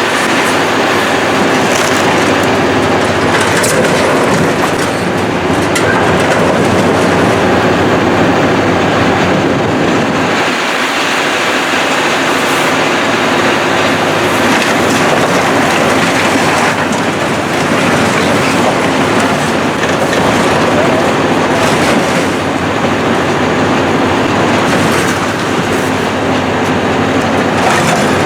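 Heavy demolition machinery tearing down a building: a big engine running under a continuous din of crunching, clanking debris and squealing metal, with scattered sharp knocks.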